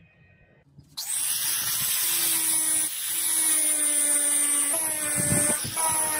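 Electric grinder running on the sword blade. It starts suddenly about a second in with a steady whine over a high hiss, and its pitch shifts briefly partway through.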